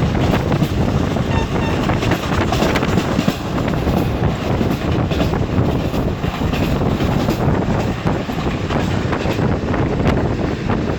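Express train running fast: a steady heavy rumble with the wheels clattering over rail joints.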